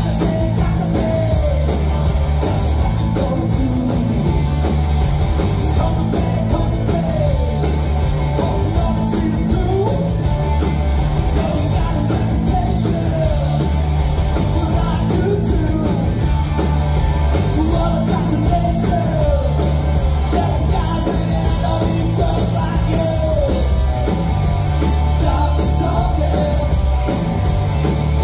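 Live rock band playing loud: electric guitars, bass and drums keep a steady beat, and a singer's voice sings over them.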